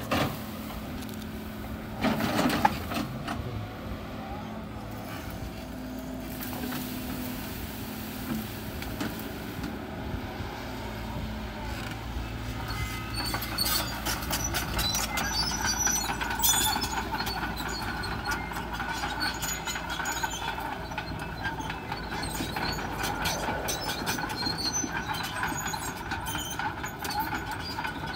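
Sumitomo SH130-5 crawler excavator's diesel engine running under load as it scrapes and clears the ground, with a loud sudden burst of hydraulic and bucket noise about two seconds in. From about halfway on, the steel tracks clank, knock and squeak as the machine travels.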